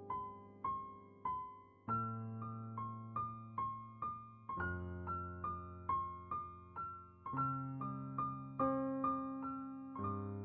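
Background piano music: a gentle melody of single struck notes, about two a second, each fading away, over low bass notes held for a few seconds at a time.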